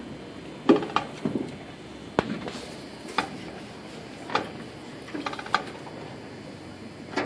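Sharp, short clicks or taps, irregular and roughly one a second, sometimes two close together, over a steady low background noise.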